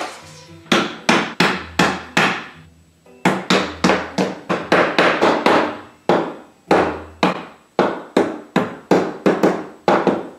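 Hammer blows driving pegs or fittings into a flat-pack furniture frame: a long run of sharp strikes, about three a second, with a short pause about two seconds in.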